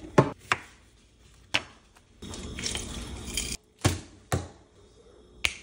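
Limes being handled on a wooden cutting board: about six sharp knocks against the board, with a stretch of soft scraping and rubbing in the middle.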